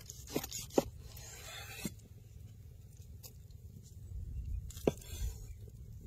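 Cleaver slicing through a grilled tomahawk steak on a wooden cutting board. The blade knocks sharply on the board twice in the first second, once faintly after that, and once more near the end, with a soft scraping hiss as it draws through the meat.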